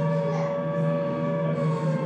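Background music: sustained droning notes held steady, one of them sliding slowly down in pitch near the end.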